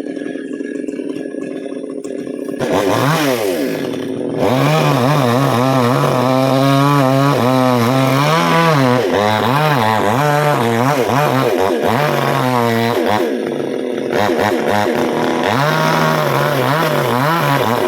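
Two-stroke chainsaw running steadily at a low speed, then opened up about two and a half seconds in. Its engine speed then rises and falls again and again, with a short lull a little after the middle.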